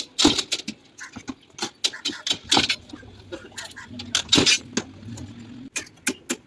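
Irregular clinks and knocks of metal and tools on a construction site, with a faint low hum partway through.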